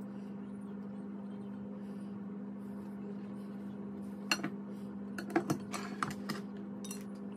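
Light clinks and clicks of a pizza slice and hands on a ceramic dinner plate, a quick cluster from about four to seven seconds in, over a steady low electrical hum.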